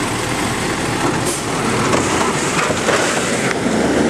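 CNG-powered automated side-loading garbage truck working its lifting arm: the engine and hydraulics run steadily under load as the arm tips a cart into the hopper, with clattering and knocks from the cart and metal arm.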